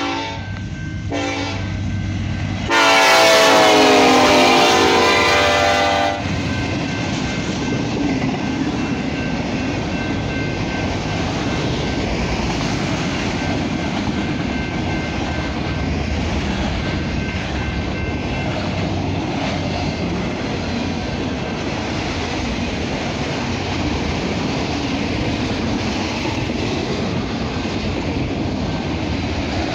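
SD70ACE locomotive's Nathan K5LLA five-chime horn sounding short blasts, then one long loud blast whose pitch falls as the locomotive passes the crossing. After that, the freight train rolls steadily by: autorack cars clattering over the rail joints.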